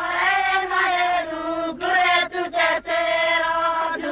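A group of voices sings long held, chant-like notes, with a few short breaks between phrases about two to three seconds in.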